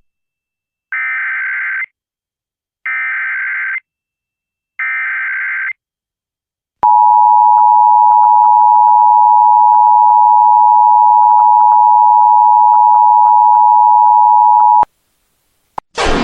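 Emergency Alert System header: three one-second bursts of SAME digital data tones, about a second apart, followed by the EAS attention signal, a loud steady two-tone alarm held for about eight seconds that cuts off sharply. A siren starts right at the very end.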